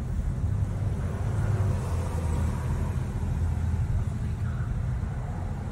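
Low, steady rumble of a car driving, engine and road noise heard from inside the cabin.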